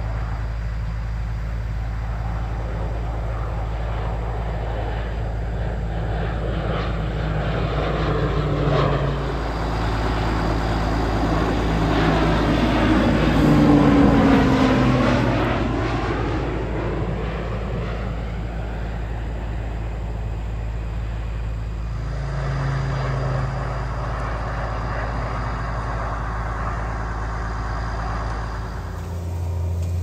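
Low-flying crop-dusting airplane passing overhead: its engine and propeller sound swells to its loudest about halfway through, the pitch dropping as it goes by, then fades. A steady low hum runs underneath.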